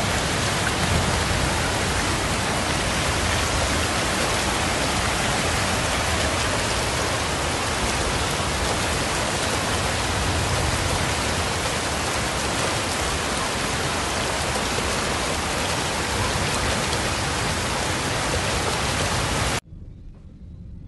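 Heavy rain pouring down and floodwater rushing through a street: a dense, steady noise. It cuts off suddenly near the end, giving way to a much fainter background.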